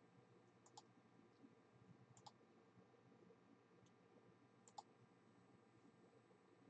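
Near silence, broken by about three faint, short clicks, the clearest nearly five seconds in.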